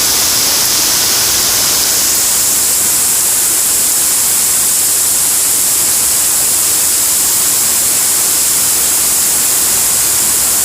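Heavy rain pouring down in a thunderstorm: a loud, steady, even hiss with no break.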